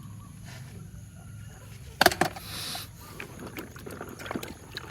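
Water splashing as plastic toy trucks are washed, with a sharp knock about two seconds in followed by a brief hiss, then scattered small clicks and knocks of the toys being handled.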